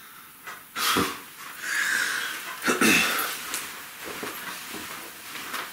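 A person getting up from a chair at a table: a knock about a second in, a rasping scrape, a second knock about three seconds in, then faint shuffling.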